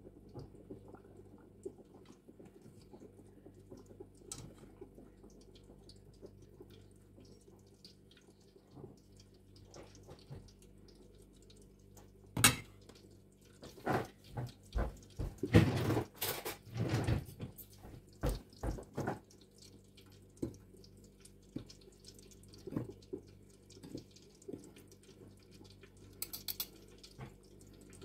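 Hot oil bubbling steadily in an electric deep fryer around battered pollock fillets. From about twelve to nineteen seconds in comes a run of sharp clinks and knocks: a metal fork against a steel bowl of batter and a plate of breadcrumbs.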